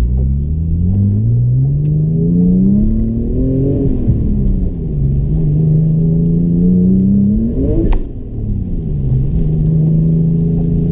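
Car engine, likely a Porsche, pulling under acceleration: its pitch climbs for about four seconds, falls away, holds steady, climbs again, then drops sharply with a brief click just before eight seconds, as at a gear change, and settles into a steady drone.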